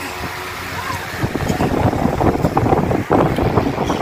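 Air from an electric pedestal fan buffeting the phone's microphone: a rough rumbling wind noise that grows louder about a second in.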